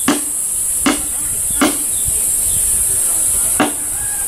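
Small hammer tapping nails into the rim of a skin-covered gourd instrument body to anchor its strings: four sharp knocks, each with a short hollow ring, unevenly spaced with a longer gap before the last. A steady high hiss runs underneath.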